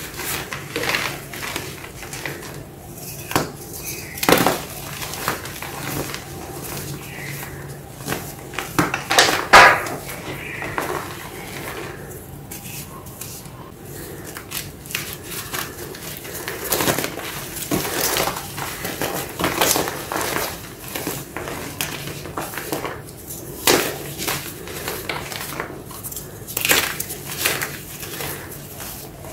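Hands crushing and crumbling reformed gym chalk blocks filled with black paste, giving dry, dusty crunches and crackles at irregular moments. The loudest crunch comes about ten seconds in.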